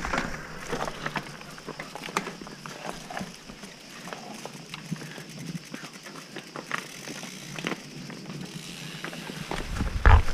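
Mountain bike rolling slowly down a rough, stony trail: irregular clicks, rattles and knocks from the tyres on stones and the bike's parts. Near the end a louder low rush comes in.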